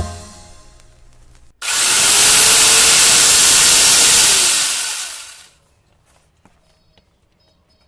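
Angle grinder fitted with a saw-chain attachment starts abruptly, runs at full speed for about three seconds, then winds down.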